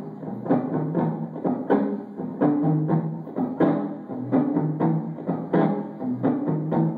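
Instrumental stretch of a live rock song: guitar played over a steady drum beat, with no singing.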